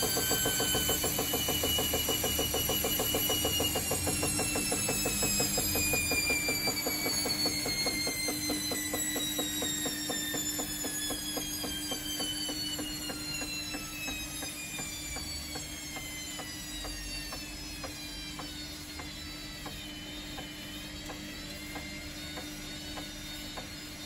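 Baumatic washer dryer's drum motor whining, its pitch falling steadily as the drum slows down from a spin, with a fast even beat from the turning drum. The whine slowly gets quieter and picks up slightly again near the end.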